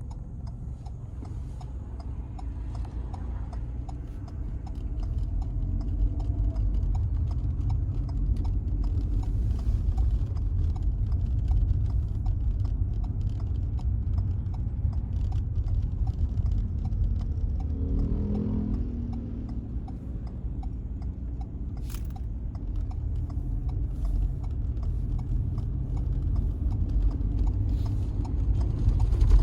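A vehicle travelling on a road: a steady low road and engine rumble with a fast, light, regular clicking running through it, and a short pitched sound about two-thirds of the way in.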